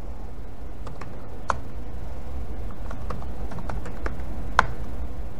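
Scattered keystrokes on a laptop keyboard: single sharp clicks spaced irregularly, the loudest about four and a half seconds in, over a steady low hum.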